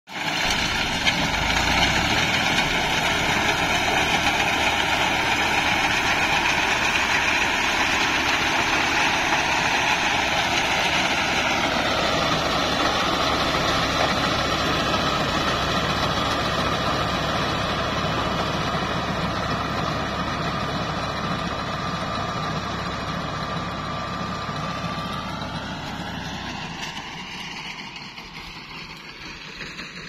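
Diesel tractor engine running steadily while it drives a mounted reaper-windrower through standing wheat. The pitch shifts a little about halfway, and the sound fades away over the last few seconds.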